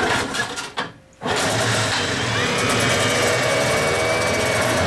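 1980 Johnson 15 hp two-cylinder two-stroke outboard on a cold start: it fires just over a second in and then runs steadily.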